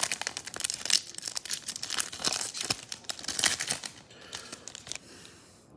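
Foil wrapper of a Topps Finest baseball card pack crinkling as it is handled and the cards are worked out of it, a dense run of crackles that thins out near the end.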